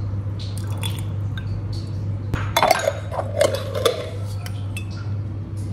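Glass clinking and scraping as chilli oil sauce is poured from a glass container into a small glass jar, with a flurry of clinks about halfway through, over a steady low hum.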